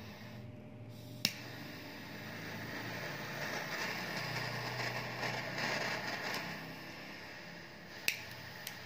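Butane triple-jet torch lighter burning with a steady hiss that swells in the middle. A sharp click about a second in, as the piezo ignition relights the flame, and another click near the end.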